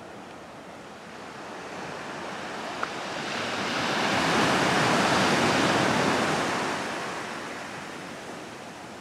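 Ocean surf on a rocky shore: one wave surging in, loudest about halfway through, then washing back out.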